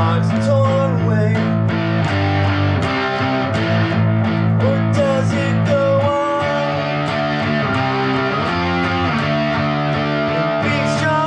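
Guitar playing sustained chords that change every few seconds, with a wavering higher melodic line held over them.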